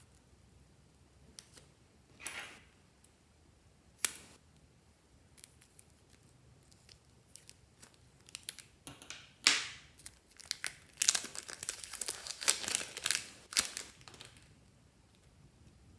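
Crinkling and tearing, as of thin plastic or paper being handled, with scattered sharp clicks. It grows into a dense, busy crinkle for a few seconds near the end.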